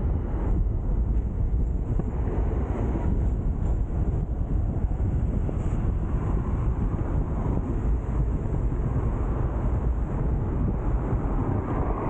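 Hong Kong double-decker tram running along its street rails, a steady, even running noise heaviest in the low end, with wind buffeting the microphone.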